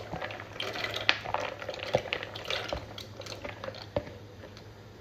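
Penne pasta tipped from a plastic bowl into a pot of boiling water: a run of splashes and light knocks for about four seconds, then quieter bubbling of the water.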